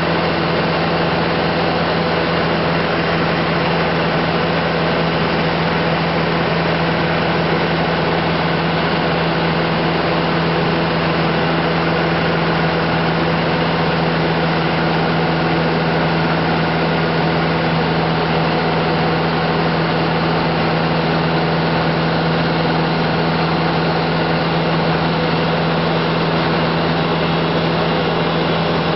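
Light aircraft's engine and propeller running steadily, heard from inside the cabin: a constant, even hum that does not change in pitch.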